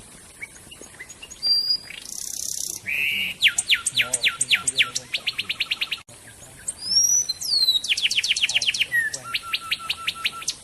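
A songbird singing two long, fast runs of sharp downward-sweeping whistled notes, separated by a brief pause about six seconds in, with a short harsh rasping note about two seconds in.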